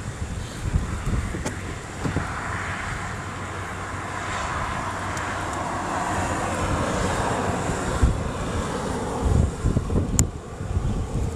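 An airplane passing, its engine noise swelling over a few seconds and then fading, with wind buffeting the microphone.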